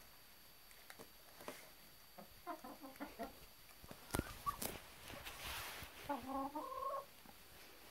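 Domestic hens clucking in two short bouts, about two and a half seconds in and again about six seconds in, with a few sharp clicks between.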